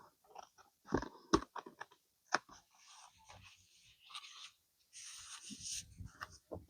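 Paper being trimmed and handled on a craft table: crunching and rustling of paper, with sharp clicks and two louder knocks about a second in.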